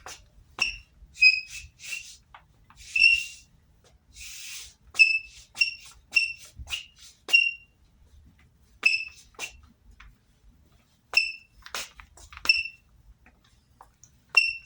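Sneaker soles squeaking on a floor: a string of short, high chirps at irregular intervals, with scuffs and light taps between them.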